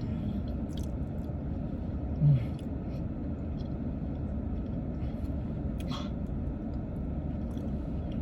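A person chewing food with faint wet mouth clicks, over the steady low rumble of a car's interior; a short low "mm" hum about two seconds in.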